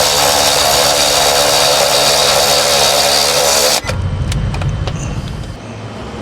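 A cordless power tool runs steadily, tightening down the nut on a sway bar quick-disconnect link, and cuts off suddenly about four seconds in. A few light metal clicks follow.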